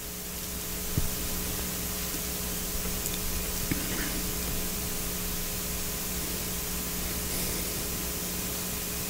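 Steady hiss from the recording's noise floor with a low electrical hum, swelling slightly over the first second, with two faint clicks about a second and nearly four seconds in.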